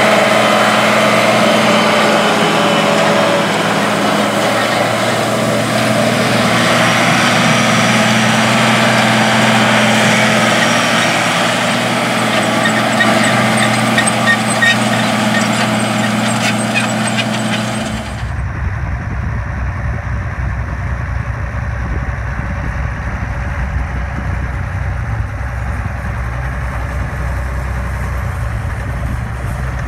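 Diesel engine of an International tractor running steadily under load while pulling a seed drill. About 18 seconds in it cuts to the turbocharged six-cylinder diesel of an International 1206 Turbo pulling a field cultivator, which sounds deeper and more muffled.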